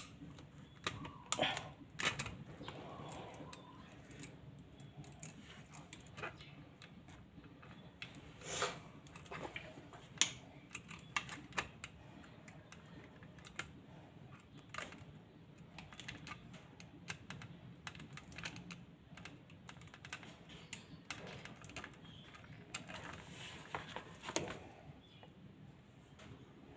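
Pliers working electrical wire: irregular light clicks and scrapes of the metal jaws gripping and twisting the wire, with a few louder clicks.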